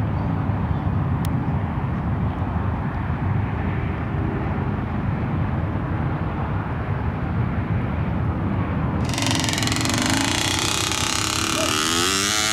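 Low, steady rumble of a hill-climb motorcycle engine running. About nine seconds in the sound suddenly turns brighter and fuller, with the engine's pitch rising and falling near the end.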